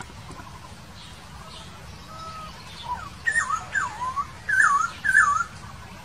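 Laughingthrush (poksay) singing: a faint whistle about two seconds in, then a run of loud, looping whistled phrases that dip and rise, ending about half a second before the close.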